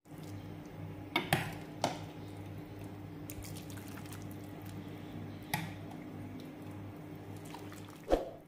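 A metal ladle serving tom yum soup into a bowl: liquid pouring and dripping, with sharp clinks of the ladle about a second in, shortly after, and again around five and a half seconds, and a duller knock near the end. A steady low hum runs underneath.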